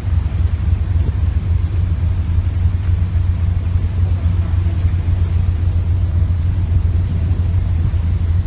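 Steady low rumble on board the passenger ship Labobar under way: engine drone mixed with wind and water noise, even throughout.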